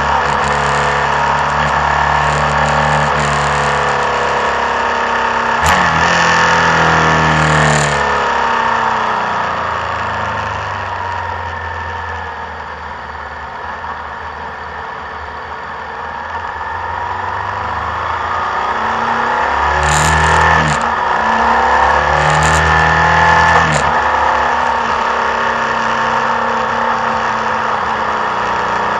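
Motorcycle engine running under way with wind rush: the revs fall away and the sound drops about eight to fifteen seconds in, then climb again toward twenty seconds. A few sharp clicks stand out near six seconds and around twenty to twenty-four seconds.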